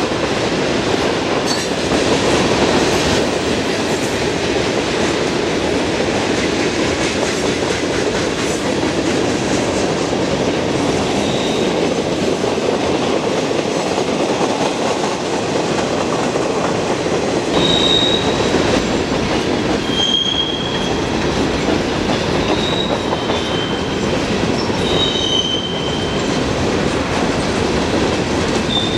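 Freight train cars (boxcars, tank cars and gondolas) rolling steadily past, their steel wheels running over the rails. In the second half, short high-pitched wheel squeals come and go several times.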